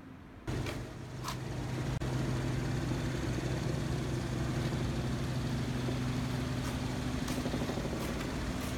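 An engine idling steadily with a low, even hum that comes in suddenly about half a second in, with a couple of sharp clicks soon after.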